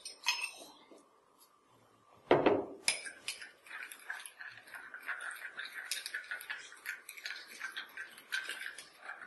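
A brief loud splash of muddy water about two seconds in, then a metal teaspoon stirring soil into water in a drinking glass, clinking quickly and repeatedly against the glass.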